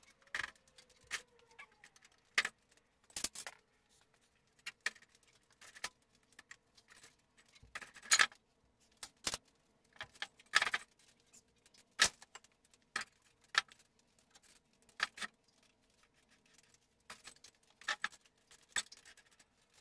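Irregular sharp clicks, clinks and knocks, mostly a second or so apart, from hands working a table saw that hangs in lifting straps from an engine hoist while its last stuck corner is worked free of the pallet. A faint steady hum runs underneath.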